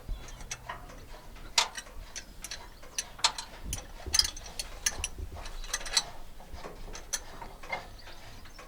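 Irregular sharp metallic clicks and clinks of a spanner working a small bolt on a Tiger tank's fan drive, freeing it to put the two-speed cooling fans into gear.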